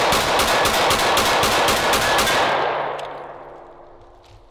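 A 9mm semi-automatic pistol fired in rapid succession, about four shots a second. The string stops about two and a half seconds in and the report echoes away.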